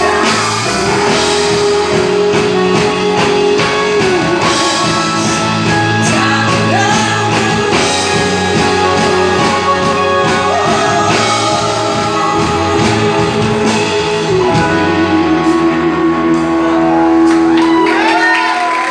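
A live gospel song sung with band accompaniment, the voice settling into one long held note with vibrato near the end.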